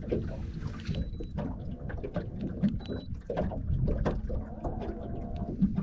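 Small boat creeping along on its electric trolling motor: a low rumble with a faint steady hum, and water lapping and knocking irregularly against the hull. Two short high beeps sound about a second and three seconds in.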